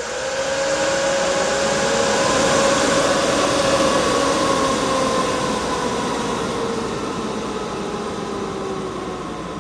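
Dell PowerEdge 1800 server's cooling fans at full speed just after power-on: a loud rush of air with several steady whining tones, easing off slightly and dropping a little in pitch over the second half.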